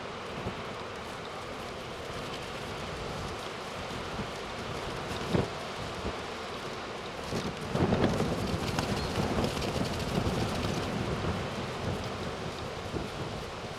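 Storm wind buffeting the microphone over breaking surf in hurricane conditions, swelling louder with a low rumble about halfway through, with a brief thump a little over five seconds in.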